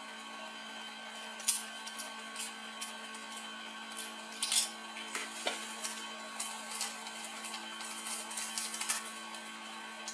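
Small plastic camera mounts, a thumbscrew and a paper sheet being handled on a table: scattered clicks, taps and brief rustles over a steady electrical hum.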